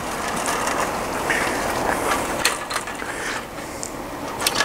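Folding scissor-truss metal frame of a Coleman instant screen room being pulled open, its joints and crossbars rattling, with a few sharp clicks.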